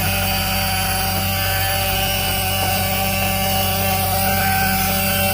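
School bus engine idling steadily, with a steady high buzzing tone on top, the back-door alarm buzzer that keeps going off while the bus runs.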